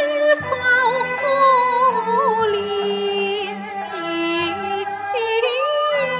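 Cantonese opera music: an ornamented melodic line that slides and wavers in pitch, carried over low accompaniment notes that come and go.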